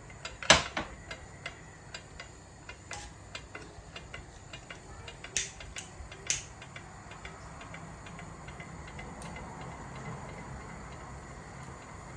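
Pot of herbal drink boiling on the stove: scattered small ticks and pops, then a steady hiss of boiling that swells slightly after about seven seconds. A sharp knock about half a second in, and two sharper ticks around the middle.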